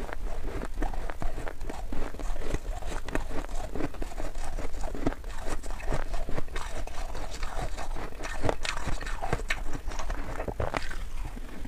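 Close-miked chewing of powdery frost ice: a dense, irregular run of soft crunches and crackles.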